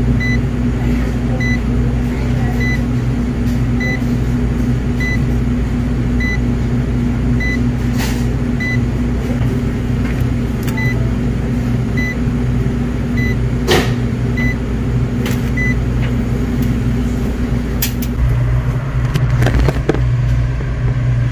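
Steady low machinery hum, with a short, faint high beep repeating every half second to a second at uneven gaps. A couple of sharp clicks come through it, and handling noise near the end.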